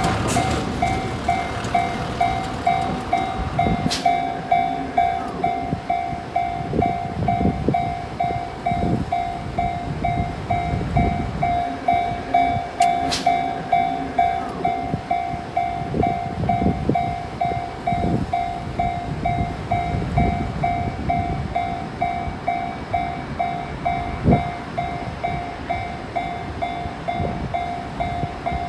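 Japanese railway level-crossing warning bell ringing in even, rapid dings, while an electric commuter train rumbles past with its wheels clattering over the rail joints.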